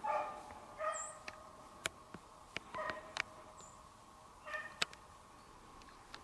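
Beagles baying on a rabbit's trail: four short calls spaced out over the few seconds. A few sharp clicks fall between them.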